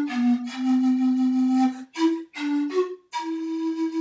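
Background flute melody: a long held note near the start, a few quicker notes in the middle, and another long held note near the end.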